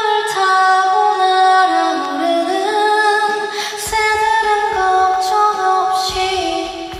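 A woman's voice singing solo a cappella into a microphone over a concert PA, in long held notes that step up and down in pitch.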